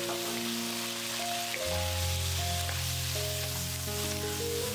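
Shrimp and asparagus sizzling as they are stir-fried in hot oil in a pan, a steady hiss. Background music with long held notes plays over it.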